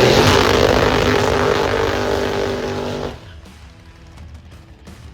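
Drag race car engine at full throttle on a run, loud and holding a high steady pitch after climbing, then cutting off abruptly about three seconds in, leaving only faint background sound.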